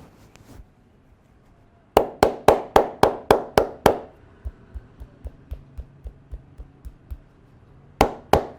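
A massage barber's hands striking the body in a fast percussive rhythm, about four blows a second. Eight sharp, loud hits come first, then a run of softer taps, then two more loud hits near the end.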